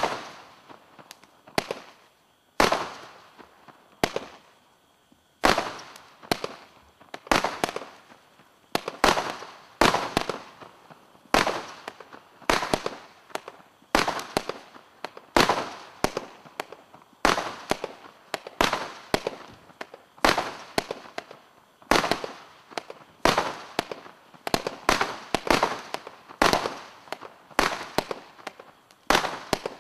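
Global Fireworks Rain of Terror 90-shot barrage cake firing shot after shot: a run of sharp bangs, each trailing off. The bangs come about a second apart at first and quicken to about two a second some five seconds in.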